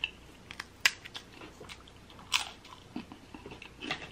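Close-miked bites and chewing of a saltine cracker: a series of sharp, crisp crunches, the loudest about a second in and a longer crunch a little after two seconds.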